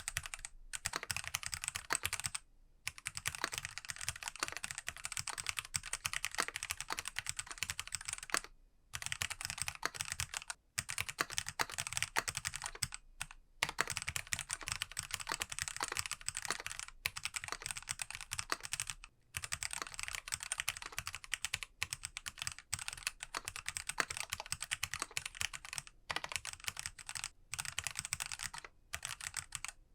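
Typing on a mechanical keyboard with lubed Kailh Box Black switches, a Monstargear ALU XO V3 with Poron plate and case foam. It is a fast, steady stream of keystrokes with a few brief pauses.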